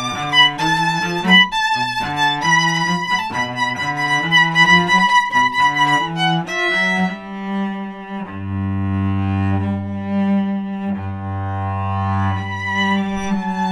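Violin and cello playing a duet. For the first half the violin plays a quick melody of short notes over the cello, then from about halfway both settle into long held notes, with the cello's low notes strongest.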